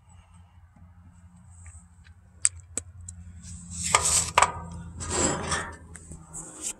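Handling noise from a phone held in the hand: a low rumble, two sharp clicks, then two bursts of rustling and scraping as the phone is moved about.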